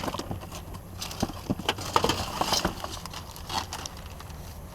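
Hands rummaging through discarded electronics and cables in a dumpster: hard plastic items knocking and clattering against each other, with rustling. The knocks come thickest from about a second in to near the end.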